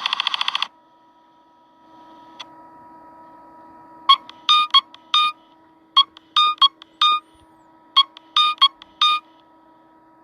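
Nothing Phone (1) ringtone playing: three groups of short, glitchy synth beeps about two seconds apart, after a brief rapid buzzing tone at the very start.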